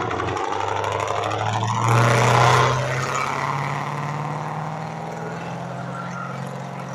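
Jaguar S-Type R's supercharged V8 at full throttle as the car accelerates hard past. The engine note rises in pitch, is loudest about two seconds in, then fades as the car pulls away.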